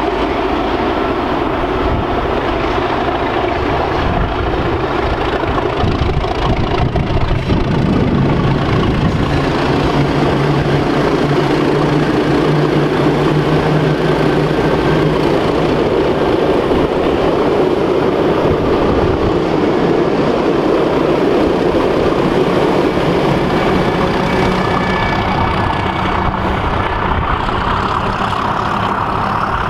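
Class 37 diesel locomotives' English Electric V12 engines running under power as the test train passes, a steady heavy diesel growl with a held low note in the middle.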